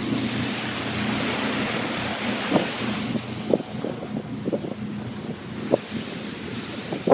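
Motorboat underway on open water: a low engine hum under wind buffeting the microphone and rushing water, with scattered short thumps from about two and a half seconds in.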